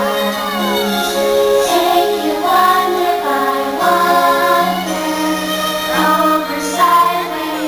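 Fireworks-show soundtrack music: a choir singing long held notes over instrumental backing, at a steady high level.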